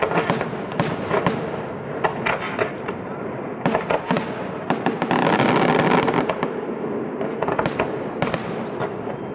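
Fireworks display: aerial shells bursting in quick, irregular succession, with a dense stretch of continuous crackling about five seconds in.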